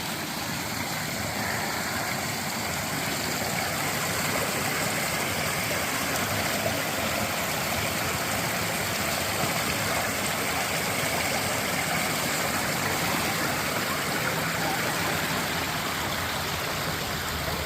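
Creek water running steadily into a swimming hole: an even, unbroken rush of flowing water.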